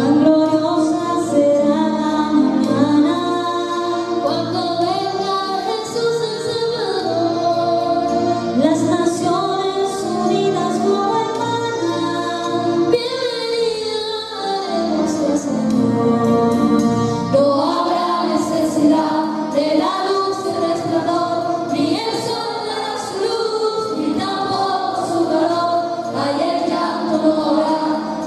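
Two women singing a gospel hymn as a duet into microphones, over a keyboard accompaniment.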